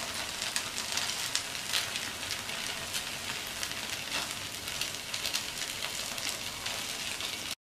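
Oil sizzling around rava kuzhi paniyaram frying in the wells of a paniyaram pan: a steady hiss with many small crackles.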